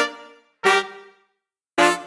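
Horn section of alto sax, trumpet, tenor sax and trombone playing three short punched notes together, each fading away before the next. The trumpet, tenor sax and trombone are timing-aligned to the alto sax lead in Revoice Pro, so the hits land together with a looser, natural feel.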